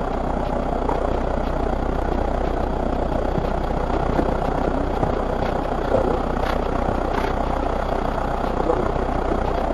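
City bus engine idling, heard from inside the passenger cabin as a steady sound with faint, indistinct voices.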